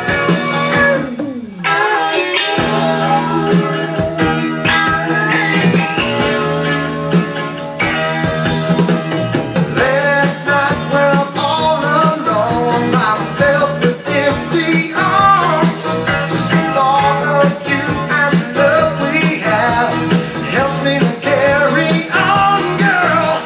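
Rock song with singing and guitar, played from a vinyl LP on a Micro Seiki MR-111 turntable.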